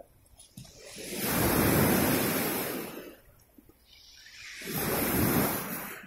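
Sea waves breaking and washing up a pebble shore, twice: each surge of surf swells up and then fades away.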